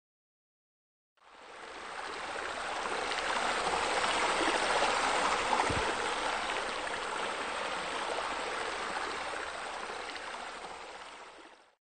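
Steady running, splashing water of a small bubbling rock fountain. It fades in about a second in, is loudest around the middle, and fades out near the end.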